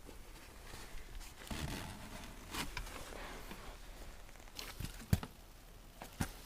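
Handling noises of machine parts being worked on: light rustling and scattered small knocks, with two sharper knocks, one about five seconds in and another near the end.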